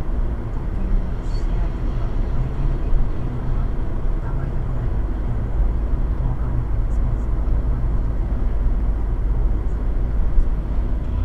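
Steady low rumble inside a moving car's cabin at expressway speed: tyre, road and engine noise picked up by a dashboard camera.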